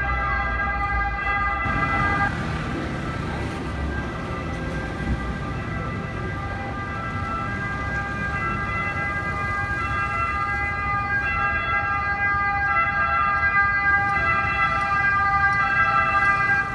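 Fire engine siren sounding in held, steady tones that shift pitch now and then, growing louder toward the end. A heavy vehicle's engine rumbles underneath about two to four seconds in.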